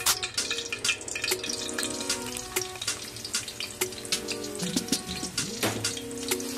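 Hot cooking oil crackling in an aluminium wok, with many scattered sharp pops; sliced onions are frying in it in the later part.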